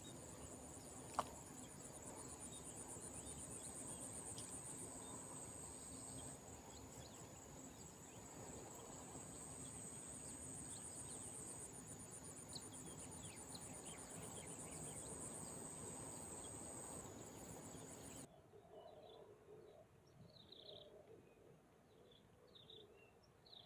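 Insects, crickets or similar, trilling steadily and high-pitched over a faint background hiss, with a single sharp click about a second in. The trilling cuts off abruptly near the end, leaving quieter scattered short chirps.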